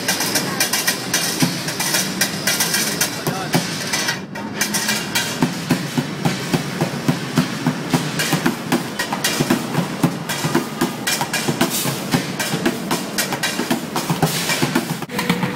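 Street bucket drumming: fast, dense strikes with sticks on upturned plastic buckets and a pan, in a steady driving rhythm, with a brief break about four seconds in.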